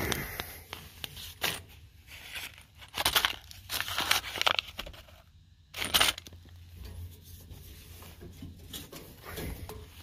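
Paper parts packet crinkled and torn open by hand, in several short, irregular rustling bursts over the first six seconds, then quieter handling.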